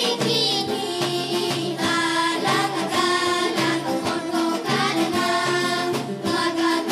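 Children's folk choir singing a Bulgarian folk song with instrumental accompaniment.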